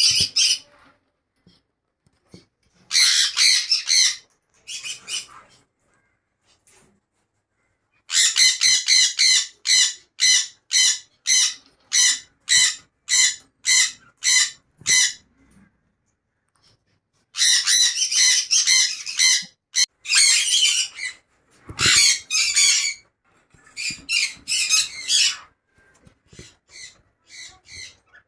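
Pet parrots giving harsh, repeated squawking calls. The calls come in runs of about two a second, with short silent gaps between the runs.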